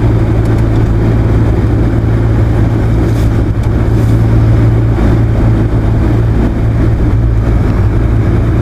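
Subaru car driving, a steady low engine and road drone.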